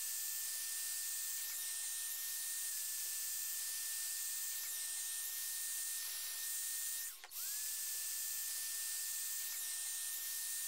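Electric heat gun running, a steady blowing hiss with a thin high whine from its fan, shrinking heat-shrink tubing over wire connections. It breaks off briefly about seven seconds in, and the whine then rises back to its pitch.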